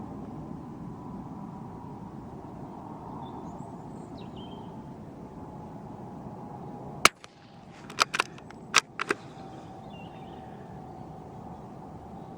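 A single .22 LR rifle shot fired from a Brno/CZ bolt-action rifle with Geco Rifle ammunition, a sharp crack about seven seconds in. Over the next two seconds come four short metallic clicks, in two pairs, from the bolt being worked to eject the case and chamber the next round.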